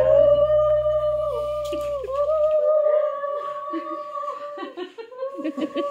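A conch shell (shankh) blown in a long, steady note that dips briefly and holds on for about four and a half seconds, then a second, shorter blow near the end. Background music cuts off partway through, and a few voices are heard near the end.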